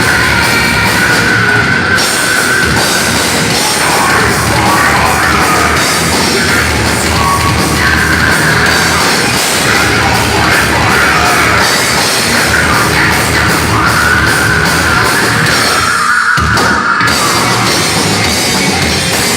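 Thrash metal band playing loudly through a live sound check, with a brief break in the playing about three-quarters of the way through.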